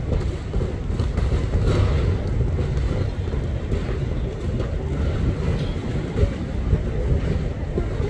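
Steady low rumble of wind buffeting the microphone, with distant city traffic underneath.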